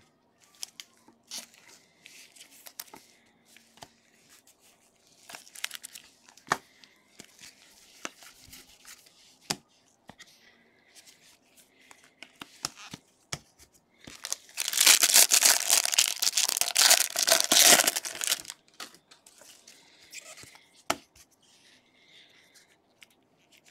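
Faint rustles and clicks of baseball cards being slid and flipped through gloved hands. About fifteen seconds in comes a loud rip lasting about four seconds: a Bowman baseball card pack wrapper being torn open.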